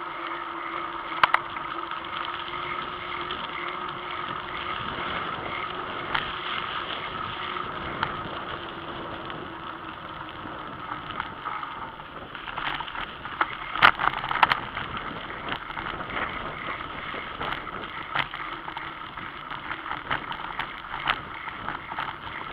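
A bicycle riding along, heard from the rider's own camera: steady rolling and wind noise. From about halfway through, frequent rattles and knocks come in as the bike runs over a rough dirt track.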